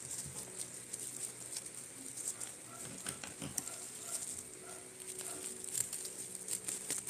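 Plastic bubble wrap crinkling and crackling as it is handled around a small boxed gadget, with many small irregular clicks.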